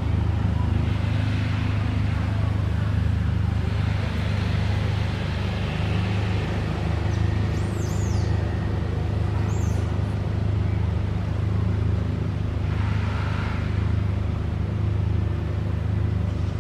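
A steady low motor hum, like an engine running at idle, holding an even level throughout. Two or three brief high chirps come near the middle.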